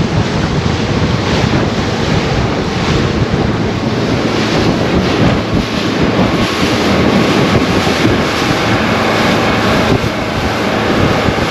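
Wind noise on the microphone and water rushing and splashing along the hull of a 29-foot center-console boat running fast over open sea. A steady, dense rush with no breaks, with the outboard engine droning faintly beneath it.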